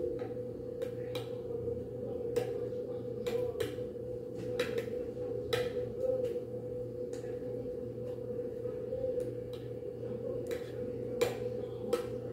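A metal spoon clinking and scraping against a glass baking dish as a layer of cream is spread, in irregular short clinks, over a steady hum.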